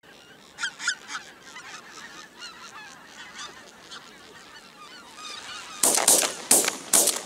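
A flock of geese honking overhead, many overlapping calls. Near the end, about five sharp bangs in quick succession, shotgun shots fired at the flock.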